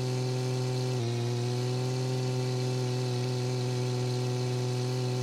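Synthesized tractor engine sound from the simulation, running steadily at full throttle as one even drone, with a slight jump in pitch about a second in.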